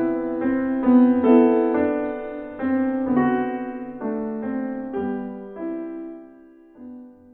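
Solo piano interlude: a slow, gentle melody of single notes and chords, each left to ring. It thins out and fades away near the end.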